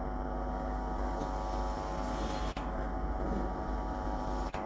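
An Indian Railways ALCO-type WDM-series diesel locomotive's engine running steadily as the train approaches: a deep drone with many even overtones. The sound dips very briefly twice, about halfway and near the end.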